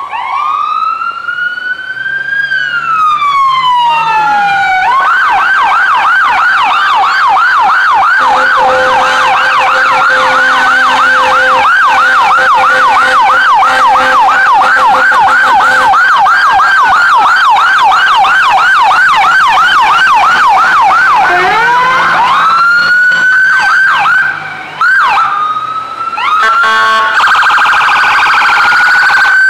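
Police car sirens. A slow wail rises and falls, then gives way to a fast yelp of about three sweeps a second. Near the end several sirens overlap and a rapid warble sounds.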